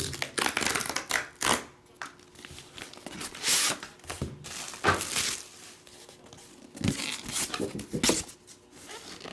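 Packaging being torn open and crinkled, and stiff cardboard sheets handled and slid apart, in irregular bursts of rustling and scraping.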